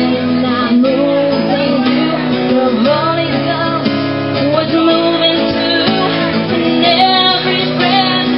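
A woman singing while strumming a cutaway acoustic-electric guitar.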